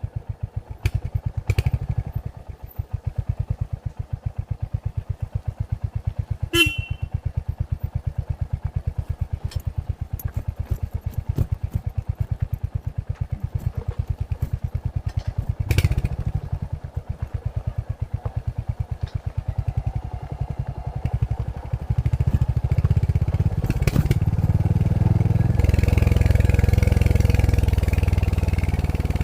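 Royal Enfield Hunter 350's single-cylinder engine with stock exhaust, running at low revs with an even exhaust beat while riding, with a few sharp clicks. Near the end it gets louder and smoother as the revs rise.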